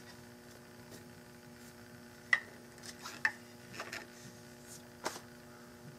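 Handling noise from a walnut gunstock being held and pressed by hand: a handful of short, light clicks and taps over a steady electrical hum.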